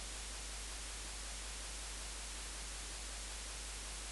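Steady hiss of the recording's background noise with a low hum underneath, unchanging throughout.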